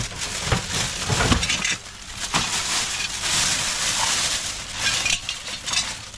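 Thin plastic shopping bag crinkling and rustling as hands rummage through it, with a few light knocks among the rustling.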